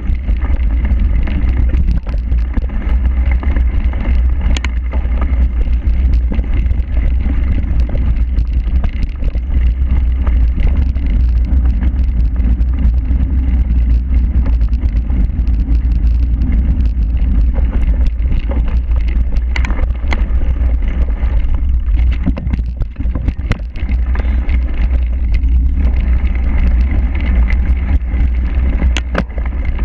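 Wind buffeting the microphone of an action camera riding on a cyclocross bike at speed, a heavy steady rumble, with scattered sharp knocks and rattles as the bike runs over rough grass and tarmac.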